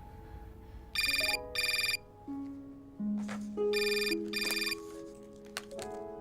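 A telephone ringing twice, each ring a pair of short bursts, about three seconds apart, over soft background piano music.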